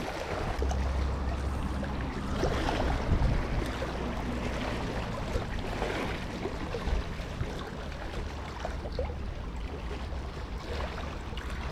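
Small waves lapping and splashing against a rocky shore, under a low steady rumble.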